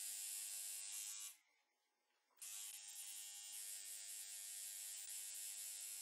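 Electric tattoo machine buzzing steadily. It stops about a second in and starts buzzing again a second later.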